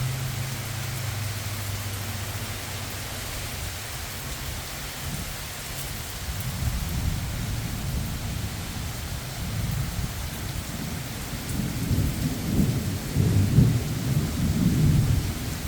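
Heavy hurricane rain falling steadily. A low rumbling builds from about six seconds in and is strongest near the end.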